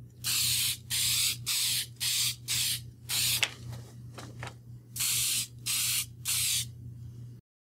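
Aerosol can of sealer sprayed in short bursts, about nine hisses of under half a second each with a pause partway through, laying a second coat of sealer over a filled edge repair. The sound cuts off abruptly near the end.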